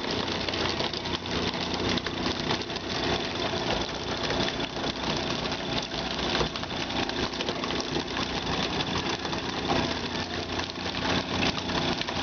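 A fishing boat's engine running steadily, a constant low hum under a dense, even noise.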